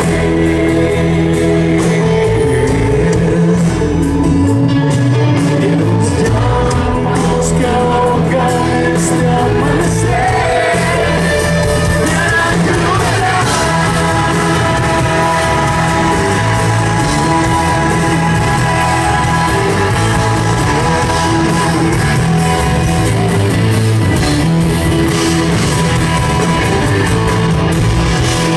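Live rock band playing: a man sings lead into a microphone over strummed acoustic guitar and a drum kit, loud and steady throughout.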